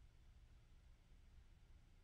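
Near silence: room tone with a faint steady low rumble.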